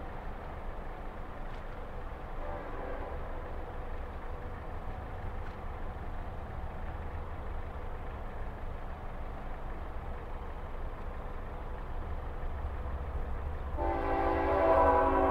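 Diesel locomotive horn of a Florida East Coast train sounding a loud multi-tone chord that starts near the end, over a steady low rumble of the approaching train. A faint horn note is heard about three seconds in.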